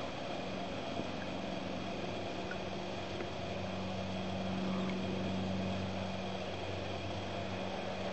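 Steady low engine hum that swells slightly about halfway through, then settles back.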